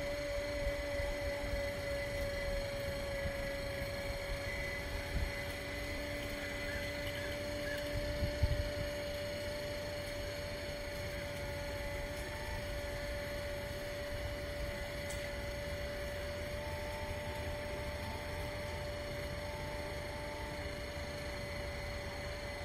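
Vertical mast personnel lift being raised: its electric-hydraulic pump motor runs with a steady, even hum while the telescoping mast extends. Two brief knocks come about five and eight seconds in.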